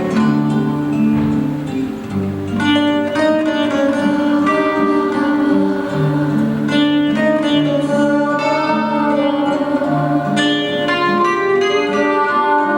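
Instrumental music: a plucked-string melody of quick notes over held bass notes.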